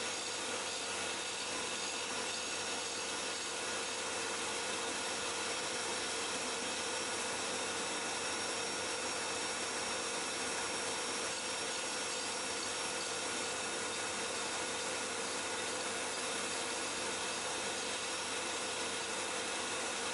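Grinding wheel spinning steadily and grinding the cone-shaped point of a steel rod for a stylus (D-bit) cutter, an even, unchanging grinding noise.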